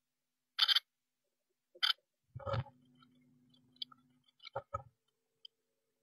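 An adult blue tit shuffling about in a wooden nest box, its feet and wings scuffing the moss and nest lining in five short rustles. The loudest, about two and a half seconds in, comes with a dull bump against the box.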